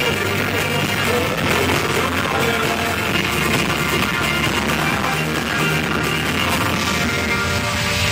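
Live rock band playing loud, with electric guitars, drums and some singing, heard through a phone's microphone and distorted.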